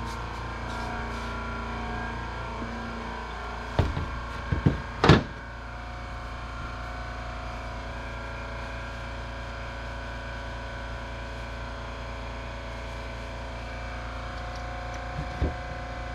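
A few sharp knocks and clatters of parts being handled during cleaning, a cluster of them about four to five seconds in and one more near the end, over a steady background hum.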